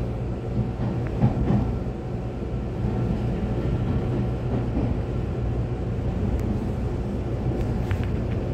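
Taiwan Railway EMU800-series electric commuter train running along the line, heard from on board: a steady low rumble of wheels on rail and motor hum, with a couple of sharp knocks about a second in.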